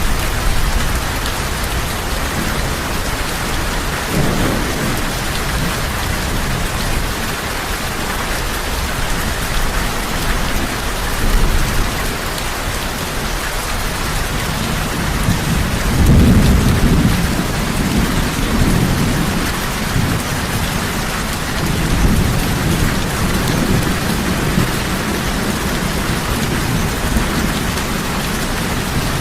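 Heavy rain falling steadily, with low rumbles of thunder rolling in about four seconds in and a longer one from about sixteen seconds.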